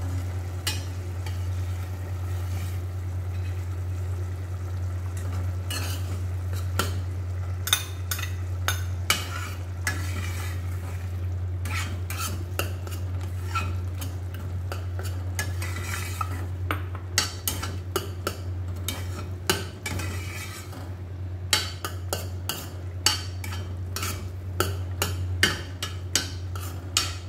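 A metal slotted spoon stirring beaten egg into a simmering tomato sauté in a stainless steel pot, with scraping and many sharp clinks of metal on the pot, most of them in the second half. A steady low hum runs under it.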